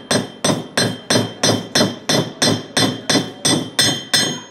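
Ball-peen hammer striking metal on a small anvil: a steady run of blows, about three a second, each with a short metallic ring, stopping near the end.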